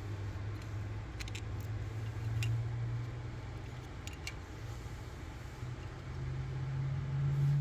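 Light metallic clicks and clinks as the heat shield and a 10mm socket and ratchet are worked into place, in small clusters over a steady low hum that slowly rises in pitch.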